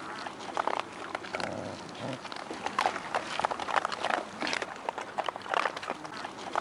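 Dogs eating dry food: quick, irregular crunching and clicking as they chew.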